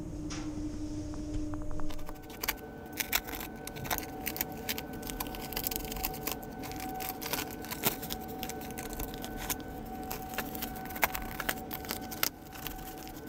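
Foil-jacketed fibreglass pipe insulation being torn and crinkled off a chilled-water pipe by hand: irregular crackling and rustling that starts about two seconds in, over a steady machinery hum.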